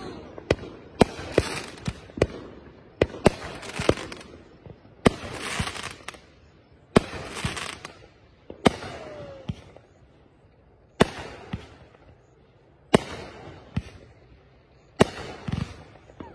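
Keystone Top 20 500-gram aerial repeater cake firing: sharp bangs of shells breaking overhead at irregular intervals, often a second or two apart. Several bangs are followed by about a second of crackling hiss from crackle stars.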